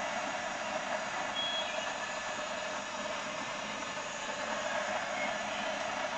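Oklahoma Joe's Blacksmith Fireman propane charcoal torch firing a steady, rushing flame into a pile of charcoal to light it.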